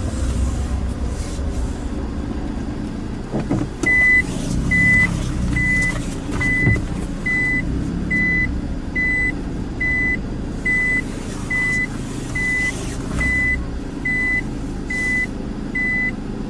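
Low rumble under a steady electronic warning beep, one high tone repeating a little faster than once a second, starting about four seconds in.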